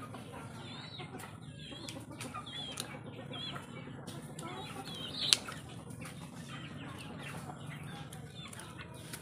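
Backyard chickens clucking, with repeated short, high, wavering peeps. A sharp click comes about five seconds in.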